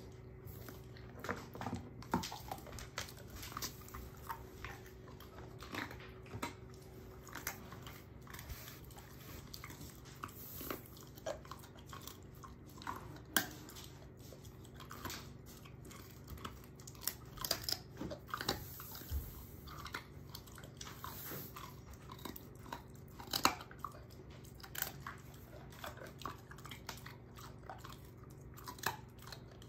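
A German shorthaired pointer crunching and chewing a dehydrated pork neck bone, with irregular bone-cracking crunches and bites. A few louder cracks stand out, about 13 and 23 seconds in.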